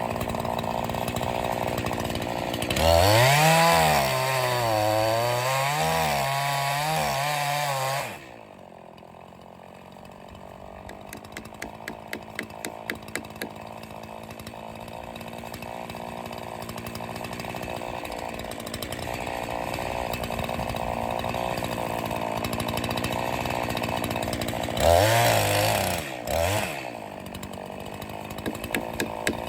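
Echo CS501P two-stroke chainsaw idling, then revved to full throttle for about five seconds while cutting, its pitch dipping and rising under load. It drops back to idle, with a short rev near the end.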